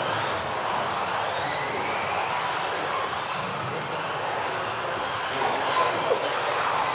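Several electric RC off-road buggies racing on a carpet track. Their motors give high-pitched whines that rise and fall as they speed up and slow down, over a steady hiss of tyres on the carpet.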